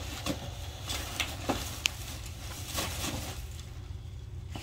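Faint rustling and crinkling of wrapping paper and packaging being handled, with scattered small clicks and a brief high tone about two seconds in.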